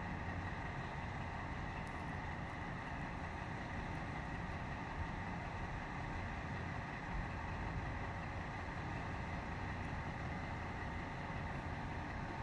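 V100-class diesel locomotive's engine running steadily, a continuous low rumble with a faint steady hum above it.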